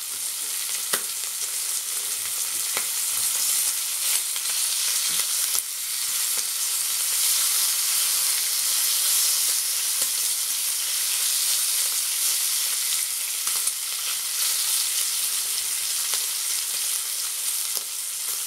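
Smoked honey-cured streaky bacon rashers sizzling in a frying pan, a steady hiss, with a few sharp clicks as tongs turn the rashers.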